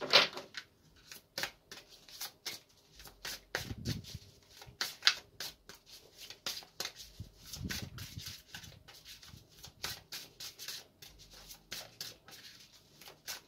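A deck of oracle cards being shuffled by hand: a long run of quick, irregular card flicks and rubs.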